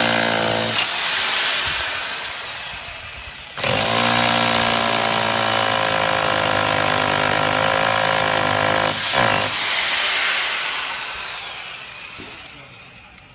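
Classic CLA-5426 1010 W rotary hammer drill hammering into concrete. It runs briefly, is released about a second in and winds down with a falling whine. It starts again about three and a half seconds in and runs steadily for about five and a half seconds, then is released and coasts down with a falling whine that fades near the end.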